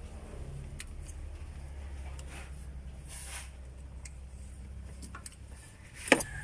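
Multicab's Suzuki F6A three-cylinder engine idling as a low, steady rumble that stops a little before the end, followed by a few sharp clicks and knocks.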